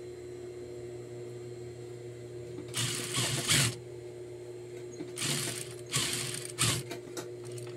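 Juki industrial lockstitch sewing machine: the motor hums steadily while the machine runs in four short stitching bursts, one about three seconds in and three close together between about five and seven seconds, as it tacks the pocket corners in place.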